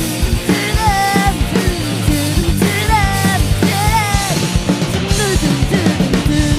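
Rock band playing: a singer holds sung notes, with phrases about a second, three seconds and four seconds in, over drums, bass and guitar.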